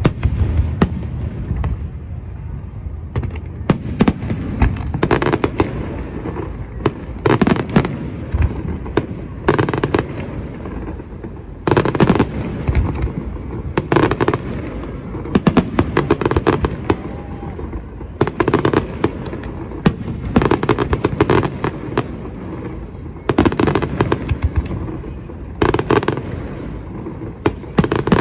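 Aerial fireworks display exploding continuously: many sharp bangs and crackling volleys, often in quick clusters, over a steady low rumble of shell bursts echoing.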